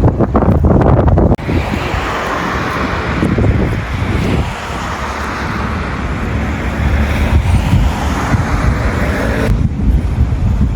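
Strong wind buffeting the microphone with a heavy low rumble. A steady rushing hiss comes in abruptly about a second and a half in and cuts off sharply near the end.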